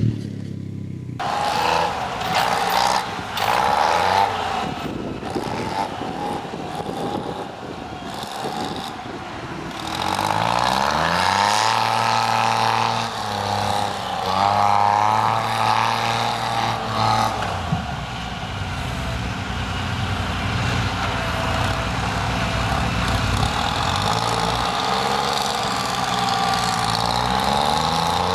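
Engines running throughout. For roughly the first ten seconds a smaller engine runs unevenly. After that, the heavy logging machinery takes over: a knuckleboom log loader and a skidder, their engine revving up and down again and again as the loader works.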